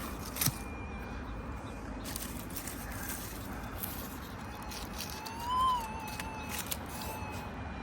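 Minelab SDC 2300 pulse-induction metal detector's steady electronic threshold tone. A little past halfway it swells up in pitch and loudness and falls back, the detector signalling a buried target. A few sharp clicks come through.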